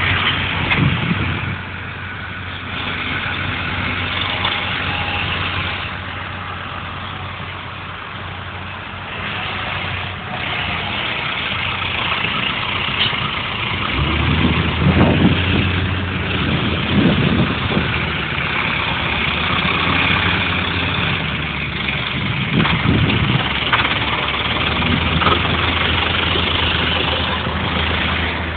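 Diesel farm tractor engines running steadily, with a constant low hum. A deeper, louder engine note comes in about halfway.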